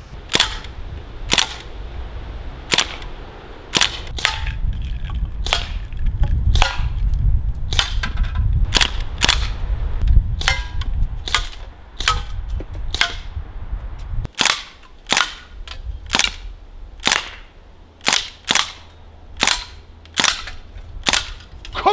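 Crosman DPMS SBR CO2-powered 4.5 mm BB air rifle firing a long string of sharp, light shots, about one a second and sometimes two in quick succession. A low rumble runs underneath for several seconds in the middle.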